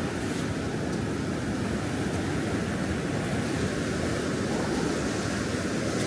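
Pacific Ocean surf washing onto a sandy beach, an even, steady rush of waves.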